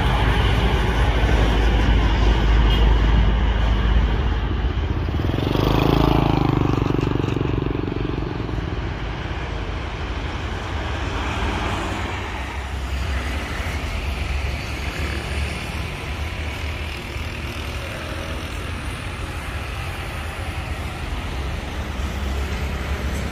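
Road traffic: a steady rush of passing cars and trucks, with one louder vehicle going by about six seconds in, after which the noise settles lower.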